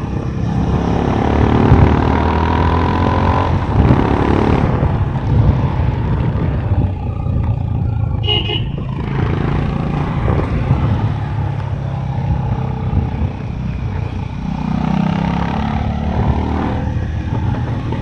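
Honda CB350 H'ness air-cooled single-cylinder engine through its stock exhaust, thumping along under way. The revs climb over the first few seconds and drop back near the fifth, then climb again later. A brief high-pitched tone sounds about halfway.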